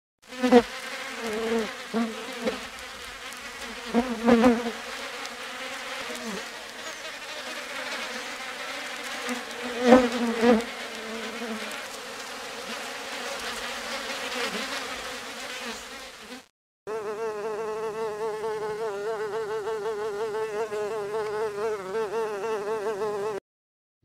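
Flies buzzing, the drone wavering in pitch and swelling loudly now and then as they pass close. About two-thirds of the way in there is a short break, then a steadier, more even buzz that cuts off just before the end.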